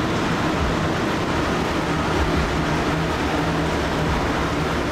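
Steady mechanical drone inside a ferry's vehicle deck: the ship's engines and ventilation running with a low, even hum.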